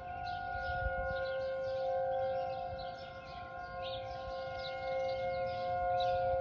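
Outdoor civil defense sirens sounding the tornado warning alert: a steady, held tone of several pitches at once that does not rise or fall in pitch.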